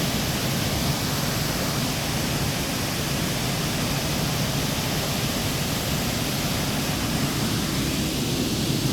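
Steady rushing of a waterfall close by, an even unbroken noise with no other events.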